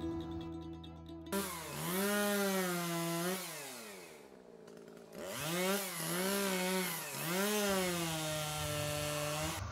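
Chainsaw revving. The pitch climbs quickly and holds, then drops away; after a short pause it is throttled up and down a few times before holding high until it stops near the end.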